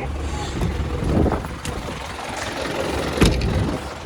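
Blizzard wind buffeting the microphone as a steady low rumble, with a few knocks; the loudest comes about three seconds in.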